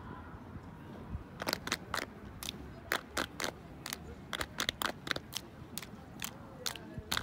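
Exhibition drill team's sharp hand claps and body slaps, short and irregular, a few a second, starting about a second and a half in.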